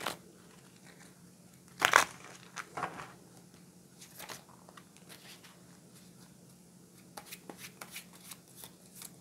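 A deck of playing cards shuffled by hand: scattered sharp snaps and slaps, the loudest about two seconds in, then a quick run of small card clicks near the end. A faint steady hum lies underneath.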